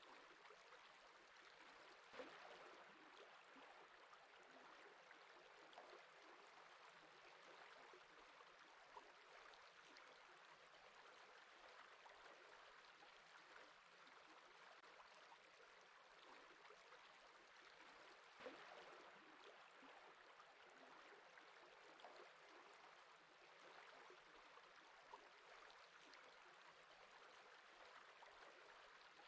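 Faint sound of flowing water, a steady soft wash with a small splash about 2 seconds in and another around 18 seconds in.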